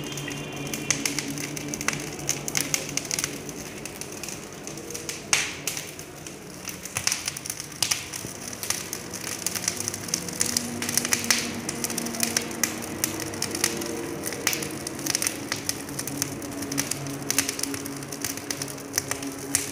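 Fire burning hot inside a tandoor oven, crackling and popping irregularly as sparks fly up, over a low steady hum.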